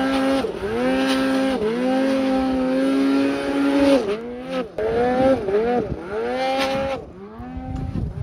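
Snowmobile engine revving hard and easing off again and again as the sled ploughs through deep powder snow, with one longer held run at high revs; it grows fainter near the end as the sled moves off.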